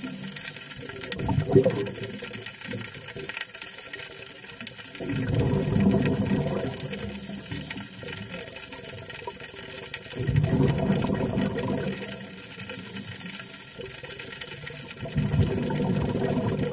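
Underwater: a scuba diver's exhaled bubbles rumbling from the regulator in bursts of about two seconds, roughly every five seconds, in a regular breathing rhythm. Under them runs a steady crackling hiss of the water.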